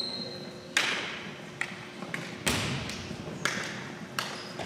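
Volleyballs being hit and bouncing on a hardwood gym floor: about five sharp, irregular thumps, each ringing on in the hall's echo, the heaviest about halfway through.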